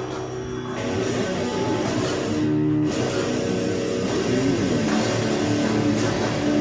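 Rock music led by a guitar playing held chords, with one bent note about four and a half seconds in.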